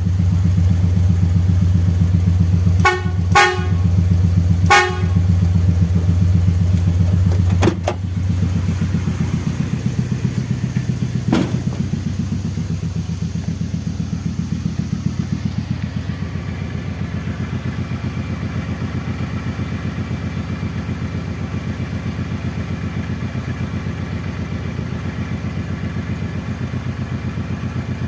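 Three short toots of an aftermarket vehicle horn voiced to sound like a Mercedes-Benz 1526 truck horn, about three to five seconds in, over an engine idling with a steady pulse.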